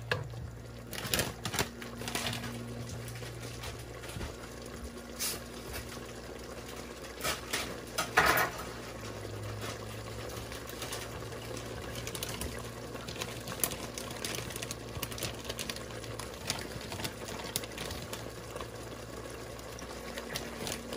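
Thick creamy mushroom sauce simmering in a pot, with irregular bubbles popping over a steady low hum. One louder pop about eight seconds in.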